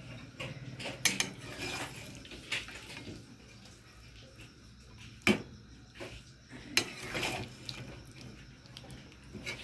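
Steel spatula scraping and knocking against a metal wok as chicken curry in thick gravy is stirred, with several sharp clinks; the loudest come about a second in, about five seconds in and about seven seconds in.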